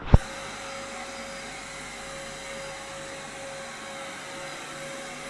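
Steady whirring noise of a small motor moving air, with a low hum and a faint steady tone, after one sharp click just after the start.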